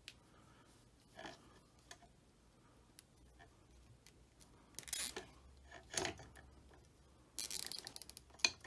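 Nylon zip tie being threaded through its head and cinched around split loom tubing: a few faint handling clicks and rustles, then a quick run of ratchet clicks near the end as the tie is pulled tight.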